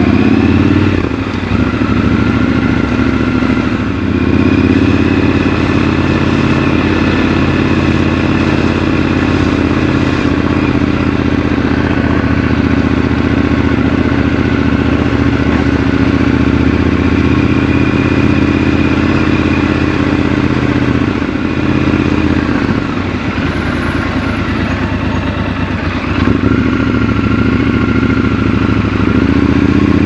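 Triumph Scrambler 1200 XC's 1200 cc parallel-twin engine running steadily while riding through town. It rises in pitch under throttle at the start and again near the end, and eases off for a few seconds about two-thirds of the way through.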